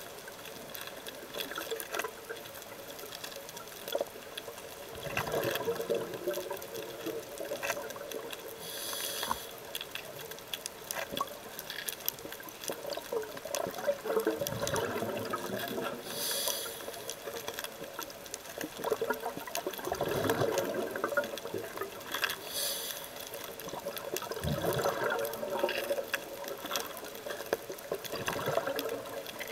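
Scuba diver breathing through a regulator underwater: about every five or six seconds a burst of exhaled bubbles gurgles, with a short hissing inhalation between bursts. Faint scattered clicks sit under it.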